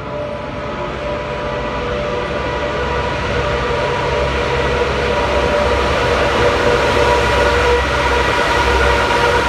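Pesa diesel multiple unit arriving at the platform, growing steadily louder as it approaches. Its running rumble carries a steady whine in several tones.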